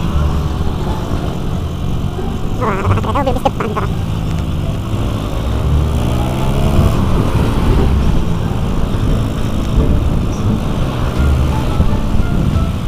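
Riding sound of a Honda C70 motorcycle played fast-forward: the engine running under a heavy rumble of wind on the microphone, with pitch lines that rise and fall. A brief higher pitched sound comes about three seconds in.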